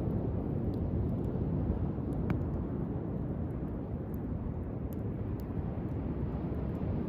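Driftwood campfire burning, with a few sharp, scattered crackles and pops over a steady low rumble.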